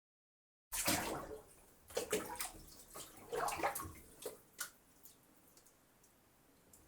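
A person bathing, with water splashing and pouring in short, irregular bursts. It starts after a brief silence and grows faint after about five seconds.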